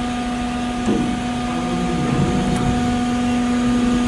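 Steady hum of a cargo ship's on-board machinery: one constant low tone with a rumbling noise beneath it.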